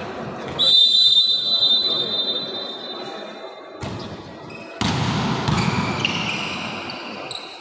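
A whistle blown in one long, steady, shrill note for about three seconds. About five seconds in, crowd noise rises suddenly, with more shrill whistle tones over it.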